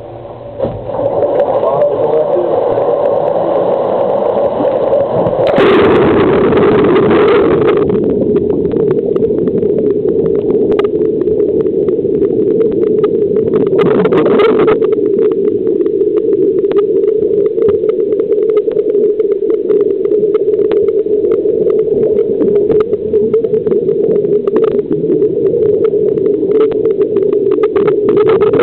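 Water rushing and bubbling around a helicopter underwater escape training dunker as it is ditched into the pool and submerged, a loud steady churning with many small clicks. It starts about a second in, with two louder surges of rushing water, the first about five seconds in and a shorter one about fourteen seconds in.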